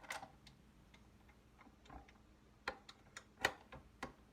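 Light, irregular clicks and knocks of kitchen equipment being handled, with a few sharper taps about three seconds in.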